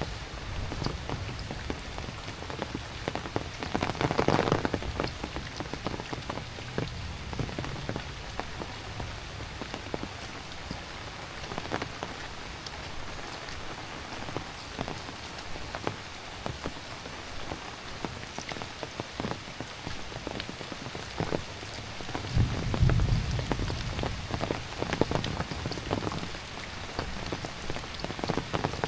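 Heavy rain falling steadily, with many individual drops ticking sharply on surfaces. The rain swells louder about four seconds in, and a low rumble rises for a couple of seconds near the end.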